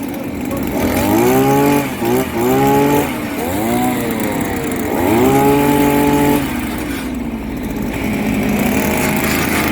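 Petrol earth auger engine revved up and let back down several times over a lower steady idle, the last rev held for about a second and a half before falling back.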